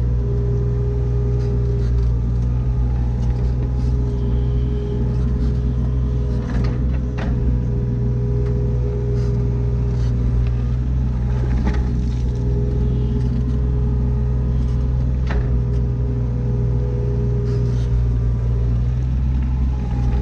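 Diesel engine of a mini excavator running steadily at working speed, with a steady whine over it and a few sharp clunks, about four in all.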